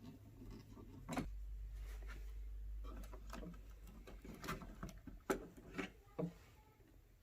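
Scattered small clicks and scrapes of a wall light switch's cover plate and screws being worked loose, over a low steady hum.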